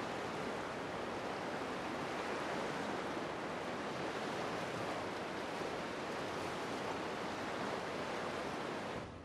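Sea surf washing onto a beach, a steady rushing wash of waves that cuts off suddenly near the end.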